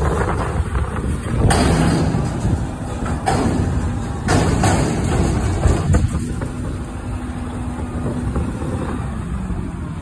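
Front-loader recycling truck's diesel engine running hard to drive the hydraulics while its forks hold a dumpster upturned over the cab. Loud metal bangs and rattles about one to two seconds apart come as the container is shaken empty into the hopper. After about six seconds the engine settles into a steadier hum as the arms lower the bin.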